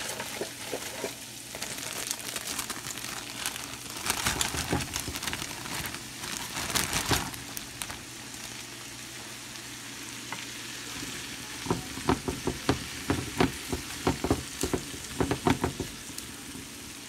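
Garlic butter sizzling in a frying pan as partly frozen broccoli florets go in, with louder crackling patches a few seconds in. Over the last five seconds or so a wooden spoon stirs the broccoli, knocking and scraping against the pan in quick clicks.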